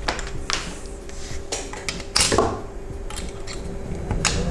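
Small hand tools and parts being handled on a workbench: a few separate sharp clicks and knocks, the loudest about two seconds in.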